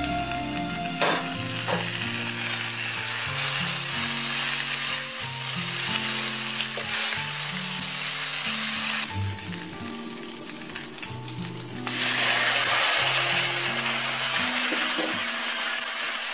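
Sliced potatoes, bacon and onion sizzling in a frying pan as they are stirred and turned with a spatula, with a couple of taps of the spatula near the start. The sizzle fades for a few seconds just past the middle, then comes back louder. Soft background music with held low notes underneath.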